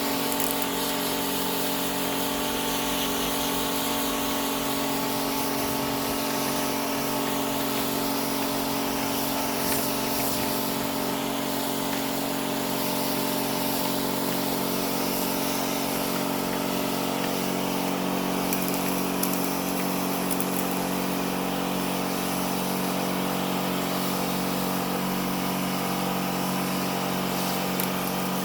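A small electric motor runs steadily with an even hiss over it, holding the same pitch and level throughout.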